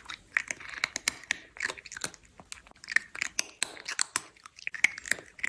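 An animal chewing food: a quick, irregular run of crunching clicks.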